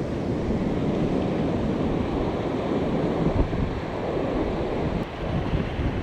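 Steady wind buffeting the microphone over the wash of surf breaking on a reef.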